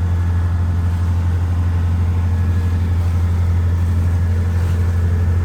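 Sailboat's inboard engine running steadily under way, a deep, even drone with no change in pitch.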